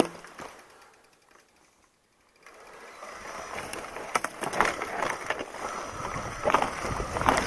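Mountain bike rolling down a dirt forest trail: tyres crunching over pine needles and twigs, with clicks and rattles from the bike. Almost silent at first, then growing louder from about two and a half seconds in.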